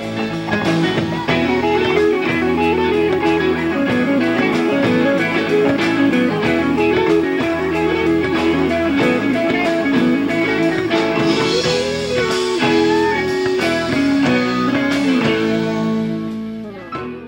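Guitar-led instrumental outro music, fading out at the very end.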